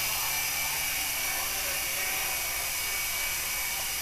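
HobbyKing DragonFly coaxial micro RC helicopter in flight: a steady high-pitched whine of its small electric motors and the whir of its two counter-rotating rotors.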